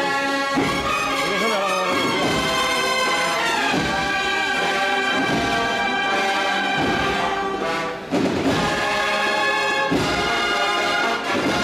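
An agrupación musical, a Spanish processional band of brass and drums, playing a Holy Week march live: held brass chords over a steady drum beat.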